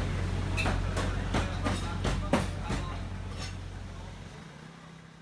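Lo-fi hip-hop background music: a steady bass line under a regular beat of crisp hits about three a second, fading out steadily.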